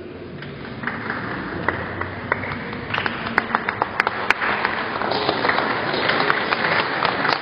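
Applause from a small gathering of people clapping by hand: a few scattered claps at first, filling out into steady applause from about three seconds in.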